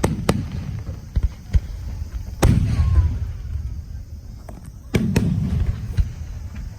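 Aerial fireworks shells bursting: several sharp bangs, each trailing a low rumble, the biggest about two and a half and five seconds in.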